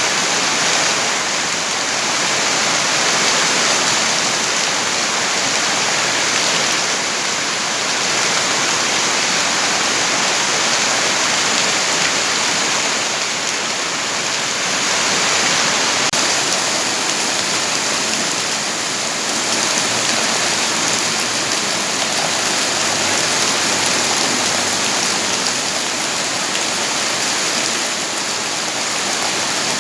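Steady heavy rain, a dense even hiss of falling water that holds without pause.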